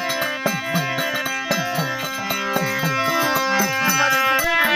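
Instrumental music: a melody over a repeating bass line that slides down and back up every half second or so.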